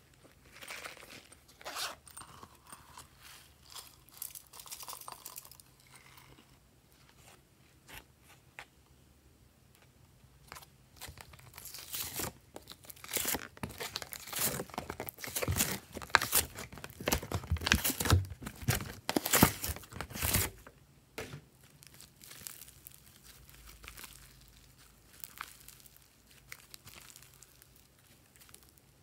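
Hands squeezing and pressing glossy slime, giving rapid crackling, squelching clicks. These are sparse at first, dense and loudest through the middle stretch, then lighter again near the end.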